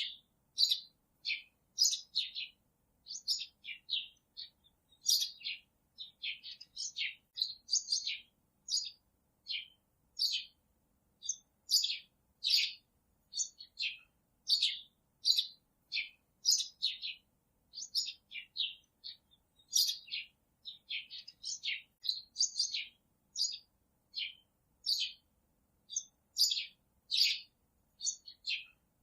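Birds chirping: a steady run of short, sharp, high chirps, one or two a second, with near silence between them.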